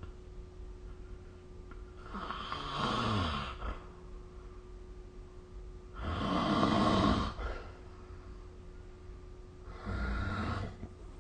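A sleeping person snoring: three snores about four seconds apart. The first drops in pitch as it goes, and the second is the loudest and longest.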